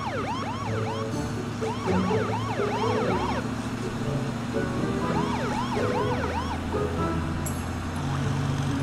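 Cartoon police siren sound effect: quick, repeated rising-and-falling yelps in clusters, over background music.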